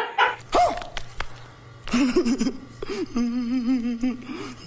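A drawn-out, wavering wail, a comic crying sound from an inserted film clip, held on one wobbling pitch over a low steady hum.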